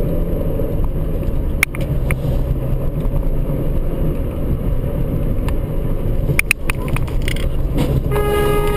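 Steady road and engine rumble of a moving car heard from inside the cabin, with a few sharp clicks. Near the end a car horn starts blaring.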